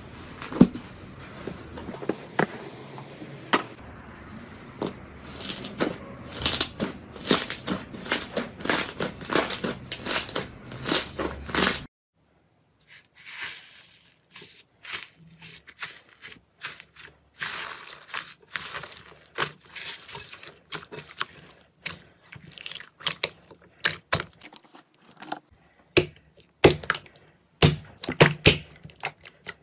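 Slime being squeezed and pressed by hand, giving runs of sharp sticky clicks, crackles and pops. The sound cuts out for about a second around twelve seconds in, then the clicking and popping resumes.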